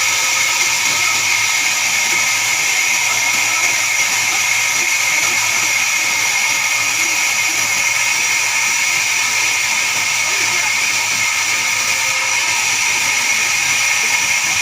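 Band sawmill running steadily: an even high whine over a hiss, with no change in pitch or level.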